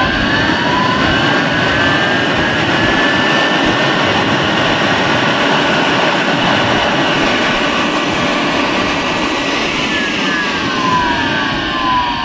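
Carrier/Bryant ECM draft inducer blower running on a bench test, its 12-volt DC control signal applied: a steady rush of air with a motor whine. The whine rises as it finishes spinning up and falls near the end as it winds down.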